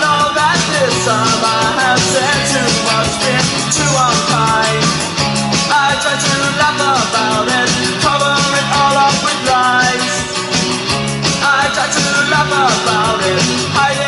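A song with a singing voice over a band, played back through a JBL OnBeat Rumble Bluetooth speaker and heard through the air of the room.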